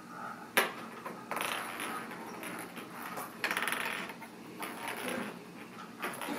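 A small toy ball clattering and rolling across a hardwood floor as kittens bat at it, with a sharp tap about half a second in and a run of rapid ticks around the middle, mixed with paws scrabbling on the wood.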